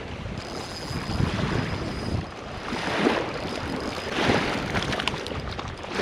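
Wind gusting across the microphone: a steady rush of noise that swells and eases several times.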